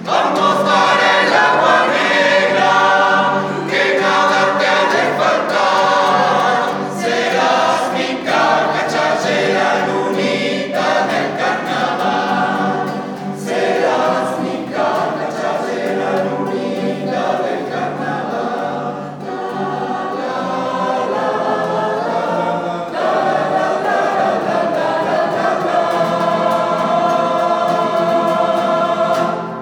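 Male choir singing a song in several-part harmony, accompanied by acoustic guitar, ending on a long held chord.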